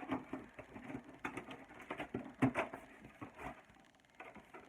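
A cardboard box and its packing being handled: irregular rustling with scattered sharp taps and knocks, dying down near the end.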